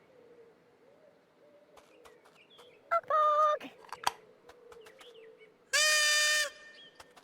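Soft garden birdsong with scattered light clicks, broken by two short, steady, high-pitched toy-like tones: one about three seconds in and a louder one about six seconds in.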